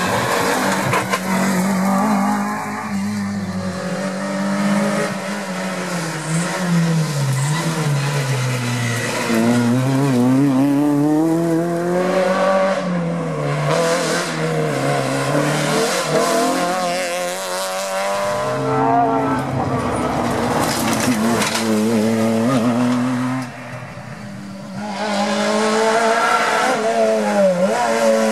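Rally cars driven hard past the spectators one after another, their engines revving up and dropping away again and again through lift-offs and gear changes. The sound dips briefly near the end before the next car comes through.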